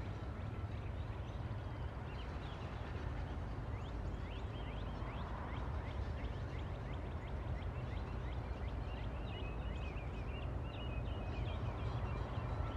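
Birds chirping over and over in quick, short sweeping calls, busiest near the end, over a steady low rumble.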